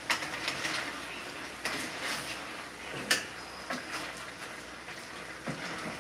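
A cooking utensil stirring in a skillet on the stove, with a few sharp clinks against the pan and its lid over a steady low hiss.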